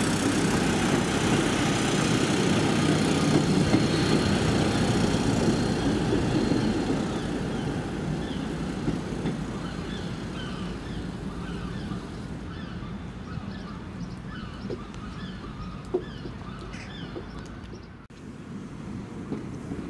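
Class 156 Sprinter diesel multiple unit moving off, its underfloor diesel engines and wheels loud at first, then fading steadily as it runs away down the line. Birds chirp repeatedly through the second half as the train noise dies down.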